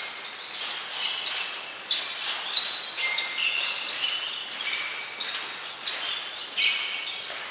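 Many athletic shoes squeaking again and again on a sports-hall floor as players shuffle and jump, with a few sharp footfalls.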